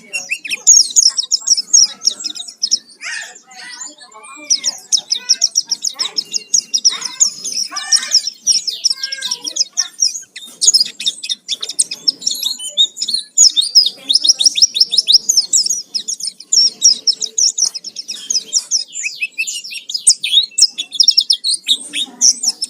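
White-eye (pleci) singing a fast, unbroken high twittering song, with some lower gliding whistled notes mixed in for several seconds about three seconds in.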